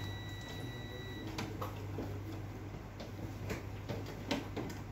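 Scattered light clicks and taps of plastic as a tool pries at the rear cover of an HP LaserJet Pro M226dn printer, over a steady low hum. A thin steady high tone sounds for about the first second, then stops.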